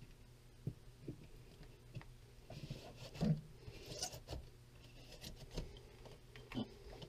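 Hands pressing and smoothing a flexible sheet of peel-and-stick vinyl mosaic backsplash tile onto a wall: scattered soft taps, rubs and crinkles of the sheet, the loudest a thump a little over three seconds in.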